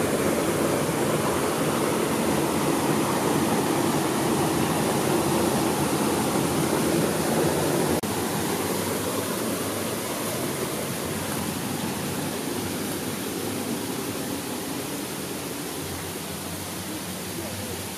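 Steady rushing noise, even and without distinct events. It drops slightly about eight seconds in and then fades gradually.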